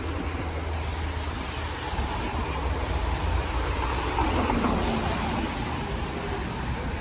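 City street traffic: cars driving past on wet pavement with tyre hiss and engine rumble, one passing more loudly about four seconds in.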